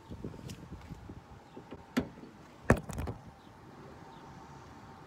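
Rustling, then a sharp click and two solid clunks close together about two to three seconds in, as a car's hood is popped open at its latch.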